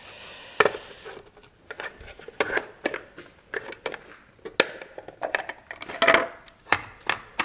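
Irregular light clicks and knocks of small hard parts being handled, after a brief hiss at the start.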